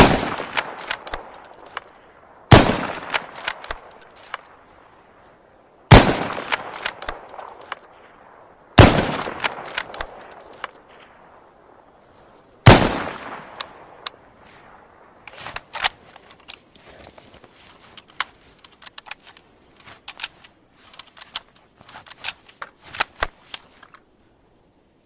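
Mosin-Nagant M91/30 bolt-action rifle firing 7.62×54mmR rounds: five shots a few seconds apart, each with a long echoing tail and small clicks in between. After the fifth shot come about ten seconds of lighter clicks and knocks.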